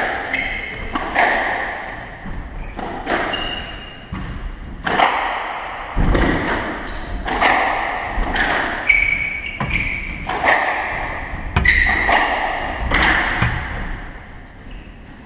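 Squash rally: the ball is struck by racquets and smacks off the court walls about once a second, each hit ringing briefly in the enclosed court, with short squeaks of shoes on the wooden floor. The hits stop shortly before the end.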